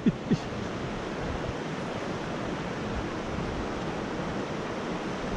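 Steady rush of a shallow mountain stream running over rocks and riffles, with two short falling-pitch sounds right at the start.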